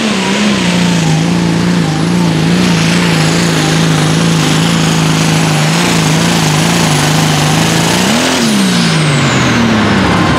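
International 5088 limited pro stock pulling tractor's turbocharged diesel engine running flat out under load while dragging the sled, with a steady high turbo whistle over it. About eight seconds in the engine revs up briefly, then winds down with the turbo whistle falling away as the pull ends.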